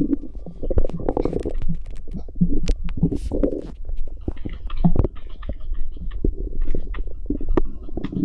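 Stomach gurgles and rumbles from a pregnant woman's belly: irregular bubbling gurgles and squelches broken by quick clicking pops, with no steady rhythm.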